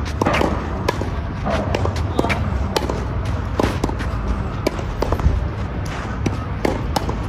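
Tennis balls struck by rackets and bouncing on a clay court: sharp, irregular pops about one or two a second over a steady low rumble.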